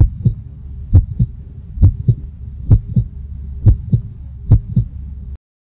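Heartbeat sound effect: six double thumps (lub-dub), a little under one per second, over a low hum, cutting off suddenly near the end.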